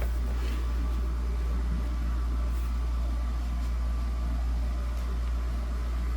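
Holmes Blizzard 9-inch table fan running steadily: an even motor hum under a rush of moving air, with a faint steady whine.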